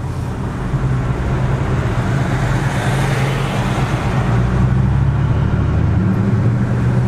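Dodge Charger Hellcat's engine pulling hard under acceleration, heard from inside the cabin, with a broad rush of noise that grows slowly louder.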